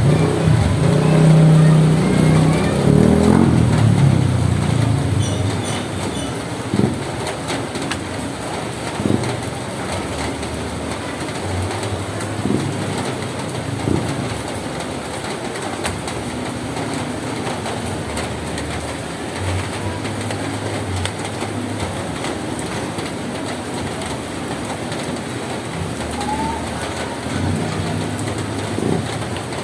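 Steady rain on a roof, an even patter of drops. A low drone sounds over the first few seconds.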